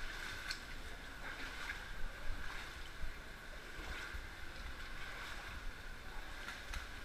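Water sloshing and lapping as people wade through deep water, with small irregular splashes over a steady hiss.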